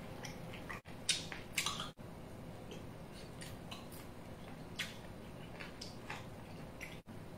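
A person chewing food close to the microphone, with scattered short wet smacks and clicks of the mouth over a steady low hum.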